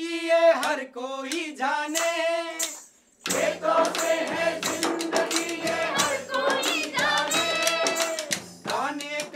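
Men's and women's voices singing a Hindi protest song together in call-and-response style, with a hand-beaten frame drum (dafli) and wooden hand clappers keeping the beat. About three seconds in the music breaks off briefly, then comes back fuller with the whole group singing.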